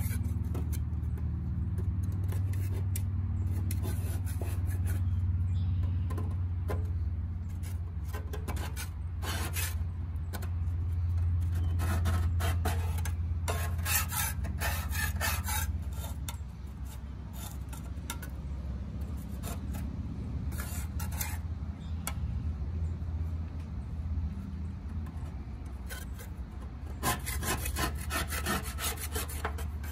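A Grass Buster deck scraper scrapes caked grass clippings off the underside of a mower deck around a blade spindle. It comes in runs of short rasping strokes, heaviest about nine, fourteen and twenty-eight seconds in, over a steady low hum.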